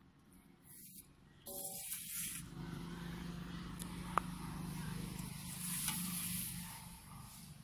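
Low hum of a passing motor vehicle that swells and then fades near the end. Over it, light handling of a plastic colander on a steel pot, with one sharp tap about four seconds in.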